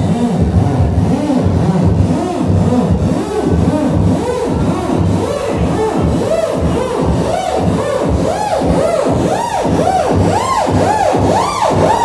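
Electronic dance music playing loud, with a steady beat under a build-up of repeated swooping synth sweeps, about two or three a second, that climb steadily higher in pitch.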